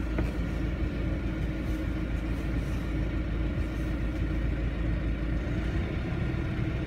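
Canal tour boat's engine running steadily, a low, even drone heard on board.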